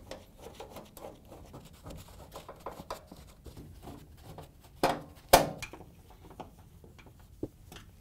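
Small clicks and scrapes of screws being driven into a washer's sheet-metal front panel with a Torx 20 driver, with two sharp metal knocks about five seconds in.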